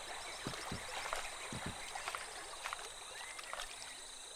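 Faint rainforest river ambience: a steady high insect drone over a soft watery hiss, with a few short soft clicks and a brief chirp past the middle.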